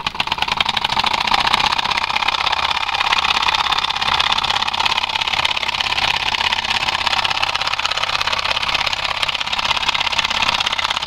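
Miniature single-cylinder vertical solenoid engine starting up and running: a fast, even mechanical clatter of clicks that builds over the first second or so and then holds steady.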